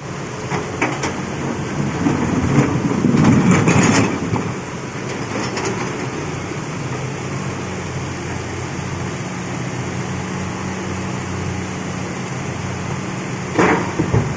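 Hitachi excavator's diesel engine running steadily while it handles rock, with louder scraping and knocking of stone between about two and four seconds in, a few single knocks, and another clatter near the end.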